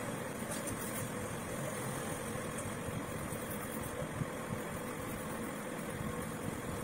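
A steady low hum with a hiss that does not change in level.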